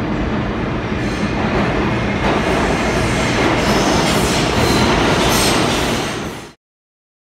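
Subway train noise in a station: a dense rail rumble that grows slightly louder, with metallic wheel squeal high up in its second half. It cuts off suddenly about six and a half seconds in.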